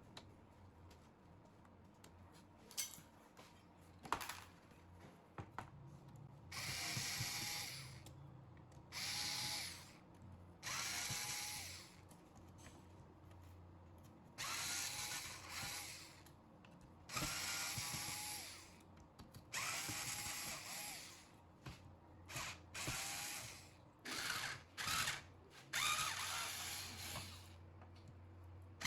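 Handheld electric drill-driver running in about ten short bursts of a second or two each, starting about six seconds in, with its motor pitch shifting within each burst. A few light clicks come before the bursts.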